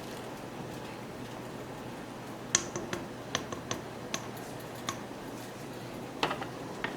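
Scattered sharp clicks and light taps of kitchen handling over a steady low hiss, most of them in the middle and a few more near the end.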